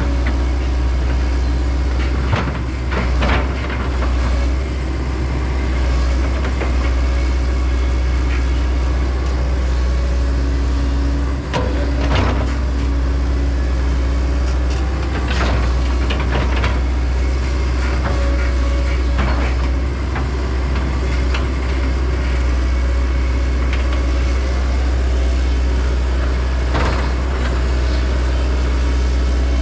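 Heavy machinery's diesel engine running steadily at a low drone during stump clearing, with a few scattered knocks and clunks and a brief whine near the middle.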